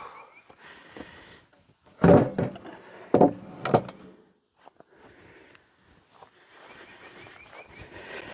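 Heavy sawn hardwood boards knocking and thunking against each other as they are set down and stacked, with a few loud wooden knocks about two to four seconds in and quieter clatters around them.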